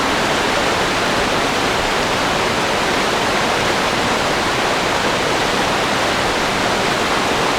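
Creek in flood after days of heavy rain, roaring: a loud, steady rush of water that does not change.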